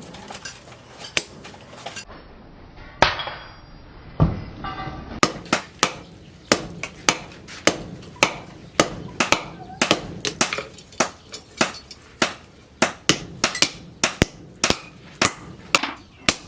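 Blacksmith's hammer striking steel being forged into an axe head. The blows are sharp and each rings briefly. They are scattered at first, then settle into a steady rhythm of about two strikes a second from about five seconds in.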